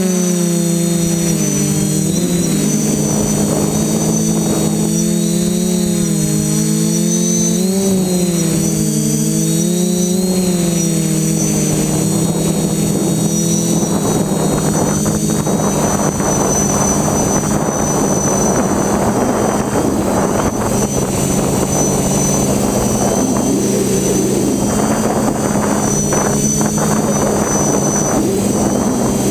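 Brushless motors and propellers of a TBS FPV quadcopter in flight, heard from its onboard GoPro: a loud buzzing whine whose pitch rises and falls with the throttle, turning rougher and noisier with rushing air from about halfway through.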